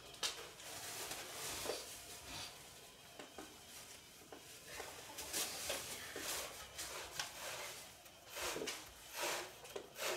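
Quiet, scattered rubbing, scraping and clicking from hands working cotton thread and cord, with short louder scrapes now and then.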